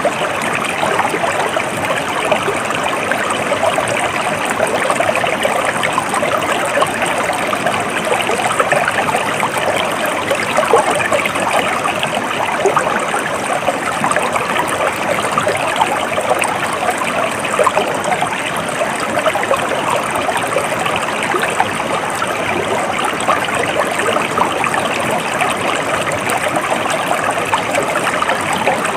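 A stream flowing steadily: a continuous trickling, babbling rush of water that holds the same level throughout.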